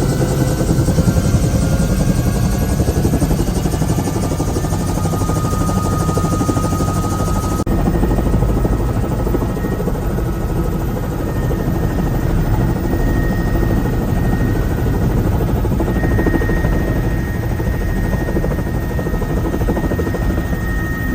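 Helicopter engine and rotor running steadily, a loud constant drone with faint whining tones. About seven and a half seconds in, the sound changes abruptly and loses much of its hiss.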